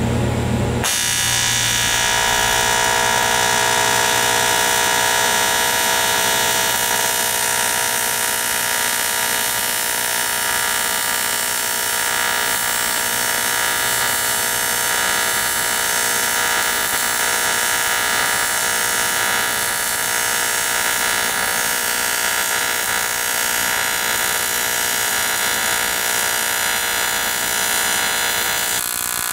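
AC TIG welding arc on aluminium, a steady buzz made of many even tones, struck about a second in and held as the weld is run with filler rod fed in.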